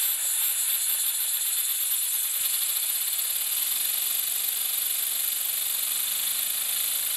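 Compressed air hissing loudly from an air blow gun through a small LEGO double-action piston engine, with a fine rapid rattle from the engine running flat out on high air pressure.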